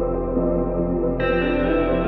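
Background ambient music of slow, sustained chords; higher notes join in a little over a second in.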